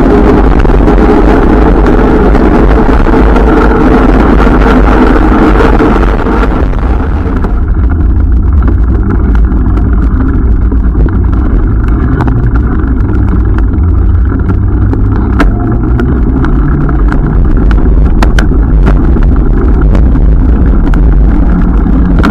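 Wind rumbling and buffeting the microphone of a camera mounted on a moving bicycle, heavy and low. For roughly the first seven seconds a brighter rushing noise rides on top. After that the sound is mostly low rumble with scattered short clicks and knocks over rough pavement.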